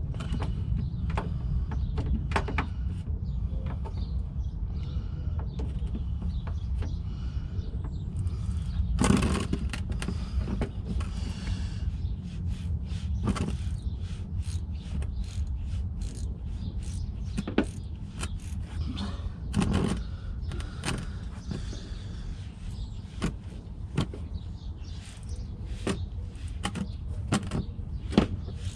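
Scattered metallic clicks and knocks from a socket wrench being worked on a car's coolant drain plug to loosen it, over a steady low rumble.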